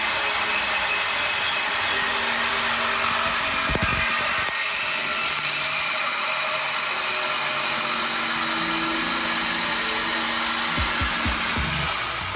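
Reciprocating saw running steadily as it cuts through a steel car exhaust pipe, a continuous buzzing rasp that cuts off suddenly near the end.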